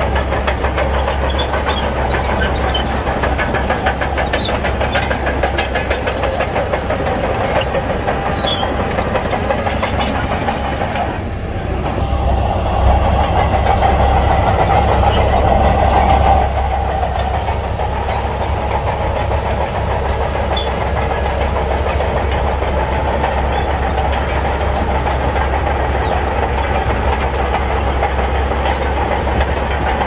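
Shantui crawler bulldozer's diesel engine running under load as it pushes sand, with the clatter of its steel tracks. It grows louder for a few seconds about halfway through, then settles back.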